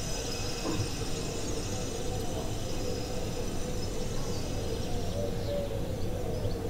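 Steady droning ambient soundscape with a low rumble and a held mid tone, played as a backdrop between spoken lines; faint bird-like chirps come in over it in the second half.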